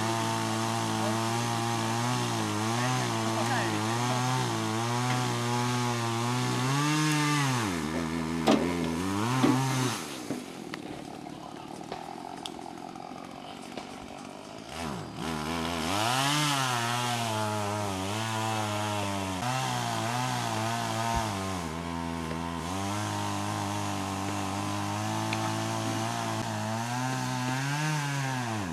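Small petrol engine running at a fairly steady speed, its pitch wavering up and down. About a third of the way in it slows to a low note and goes quieter for several seconds, then speeds up again; it dips briefly once more past the two-thirds mark.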